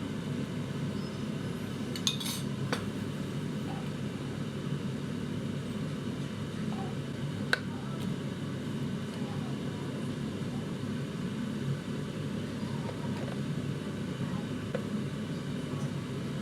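A few light clicks and clinks, the sharpest about two seconds in and about seven and a half seconds in, over a steady low rumble.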